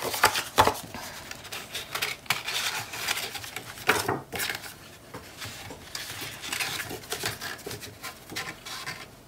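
Cardstock flaps handled on a cutting mat: heavy paper sliding, rubbing and rustling, with irregular light taps. The sharpest taps come about half a second and four seconds in.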